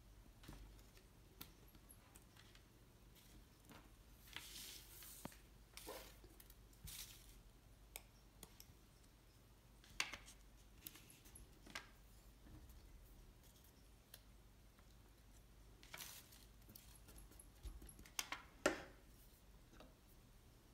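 Paper hearts and a glue stick being handled and pressed onto a card butterfly: scattered soft paper rustles and short clicks and taps against faint room tone.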